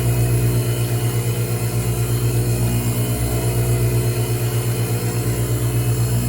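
Van Norman FG1000 flywheel grinder running, grinding the clutch face of a flywheel: a steady low machine hum with a fast, even pulsing.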